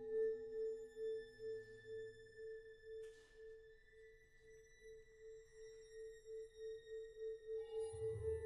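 Contemporary chamber music reduced to a single sustained tone at one steady pitch, pulsing evenly at about three or four beats a second, with faint high tones held above it. It fades almost away midway and swells back near the end.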